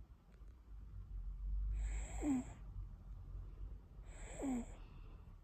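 Baby snoring: two snoring breaths about two seconds apart, each with a squeaky, whistling note that falls in pitch.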